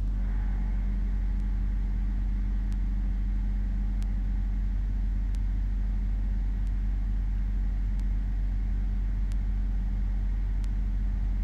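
Steady low machine hum with a constant drone, and faint ticks evenly spaced about every second and a third.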